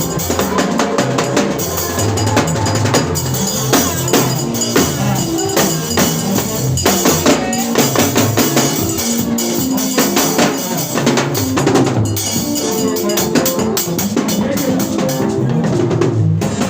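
Music with a drum kit and other percussion playing a steady beat over pitched instruments.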